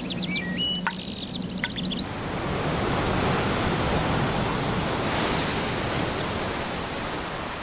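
Ocean surf: a steady rush of breaking waves that swells about two seconds in and slowly eases toward the end. High chirps sound over it in the first two seconds.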